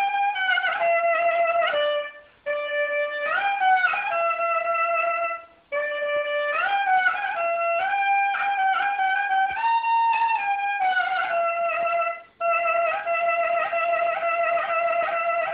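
Clarinet playing a slow, ornamented solo melody of long held notes that slide between pitches. The line is broken by short breath pauses about two, five and a half, and twelve seconds in.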